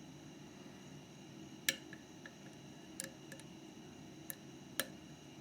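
Sharp metallic clicks of a lock pick working the pins inside a Mauer MLS euro cylinder lock during picking: four distinct clicks spread over the few seconds, with fainter ticks between them.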